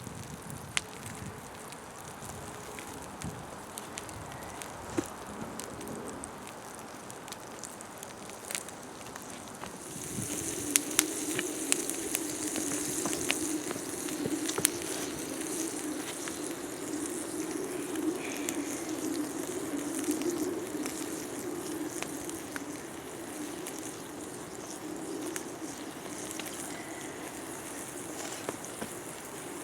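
Campfire crackling and popping, with a duck breast sizzling in its own fat on a hot rock beside it; about ten seconds in a louder, steady hiss of sizzling and flame sets in.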